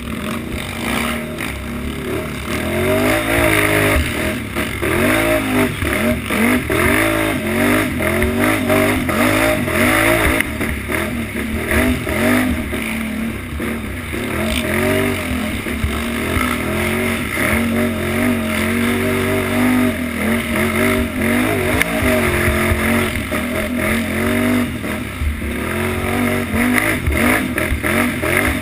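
Utility ATV engine revving hard and easing off over and over as the rider works the throttle along a rough dirt trail, with the machine clattering over the bumps.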